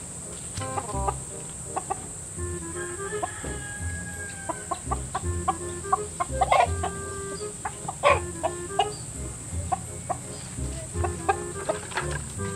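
A chicken clucking in short irregular calls, over background music with stepped notes and a steady low beat. The bird's calls are clear, without the snoring rattle of the ngorok respiratory illness it was treated for.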